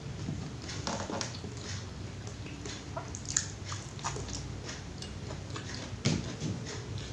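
A person chewing and eating rice with pecel and tempe mendoan, close to the microphone: irregular wet mouth clicks and smacks, with two louder ones, near the middle and near the end.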